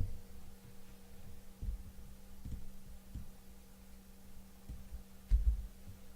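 Steady low electrical hum with a few soft, dull thumps, the loudest about five seconds in.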